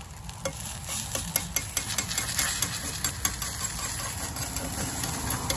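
Liquid egg from a carton frying in a pan, crackling with scattered irregular pops over a steady low rumble.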